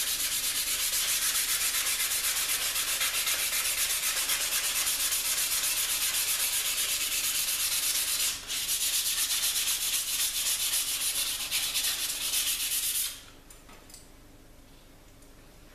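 Sandpaper rubbed by hand in quick back-and-forth strokes over an etched Damascus steel knife blade, taking the black etch oxide off the surface to bring out the pattern. There is a short break about eight seconds in, and the sanding stops suddenly about thirteen seconds in.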